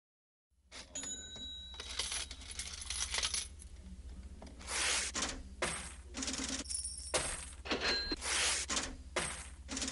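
A series of sharp clinks and rattles, several leaving short high ringing tones, over a low steady hum. It starts about half a second in.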